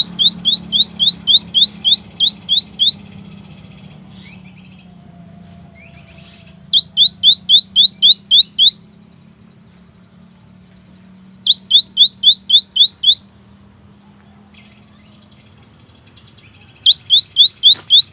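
Cinereous tit (gelatik batu) singing: four phrases of fast, repeated rising whistles, about five notes a second, each phrase lasting about two seconds with pauses of a few seconds between.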